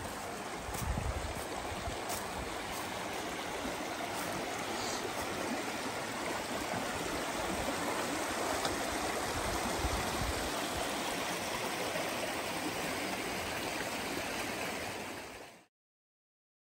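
Creek water rushing steadily, with a few low bumps near the start; the sound cuts off abruptly about a second before the end.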